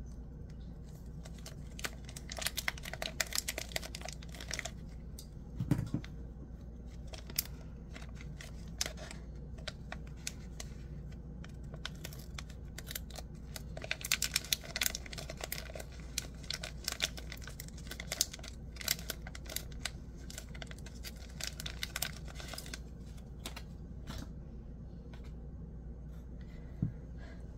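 Plastic protective film being peeled and crinkled off a fidget slider, with many light clicks and taps from handling it.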